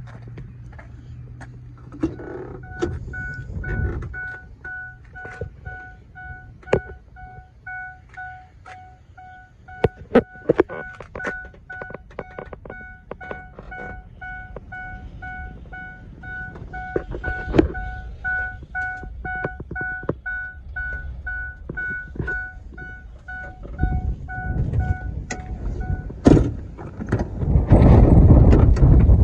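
A pickup truck's dashboard warning chime sounding repeatedly as steady, evenly spaced tones while the driver's door stands open, among scattered clicks and knocks of door and handling. The chime cuts off with a sharp knock about 26 seconds in, followed by loud rustling and rumbling.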